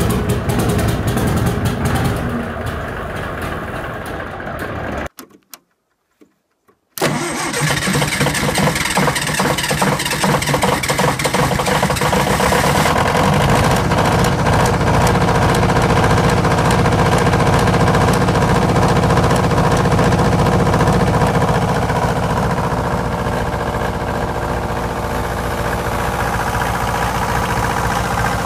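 Diesel generator engines running on a cold start. The first cuts off about five seconds in. After a short silence a snow-covered diesel generator set is heard running, its sound growing steadier about halfway through.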